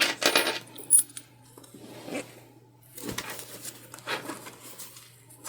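Metal zipper pull clicking and rustling as it is worked onto nylon zip tape by hand, a few small sharp clicks among soft handling rustles.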